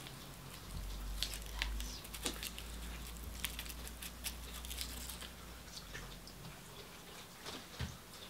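KFC fried chicken breast being torn apart by hand: the crispy breaded coating crackles in a quick, irregular run of small crunches, thickest in the first half or so.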